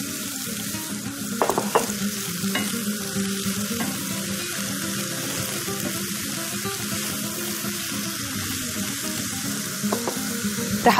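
Shredded boiled chicken and mushrooms sizzling in hot oil in a pot over a gas flame, stirred and scraped with a silicone spatula. A couple of sharper scrapes come about a second and a half in.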